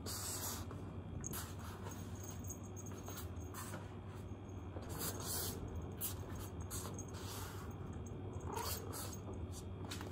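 A ginger house cat giving a short, faint meow near the end, with soft rustles and footsteps on a wooden floor over a steady low hum.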